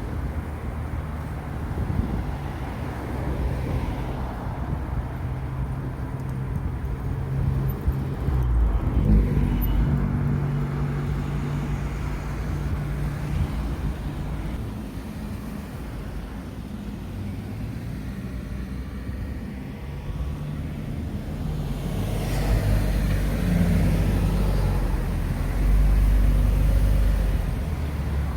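Road traffic at a junction: vehicle engines hum low and steady, and a vehicle passes close, loudest near the end.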